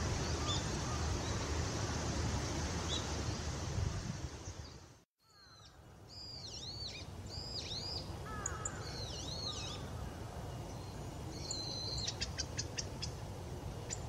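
Wild birds calling: a steady rushing noise with a few faint high notes, cut off abruptly about five seconds in. Then repeated arching high-pitched calls, and near the end a quick run of sharp clicking notes.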